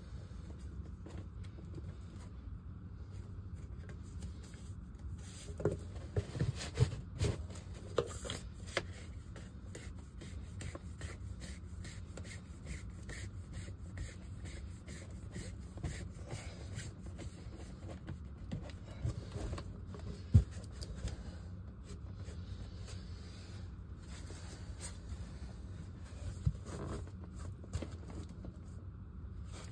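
Scraping and rubbing with light knocks as a hand handles a PVC discharge pipe and the sump pit lid, with a cluster of knocks about six to nine seconds in and one sharp click about twenty seconds in, over a steady low hum.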